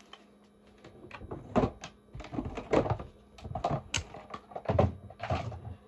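Plastic skincare bottles and containers being handled, knocked against each other and set down: an irregular run of knocks, clicks and rustles starting about a second in.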